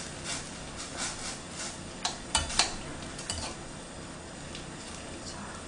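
Stainless-steel tongs stirring ramen noodles in a stainless-steel pot of boiling water. The tongs clink against the pot several times, loudest in a quick group about two seconds in. Under the clinks runs the steady hiss of the boil.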